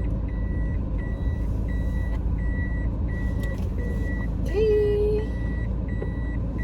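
A car's warning chime beeping steadily at one pitch, about three beeps every two seconds, over the low hum of the car. A brief wavering hum-like tone sounds about halfway through.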